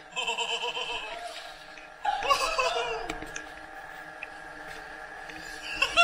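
People laughing and exclaiming in two short outbursts, the first right at the start and a louder one about two seconds in, over faint steady tones.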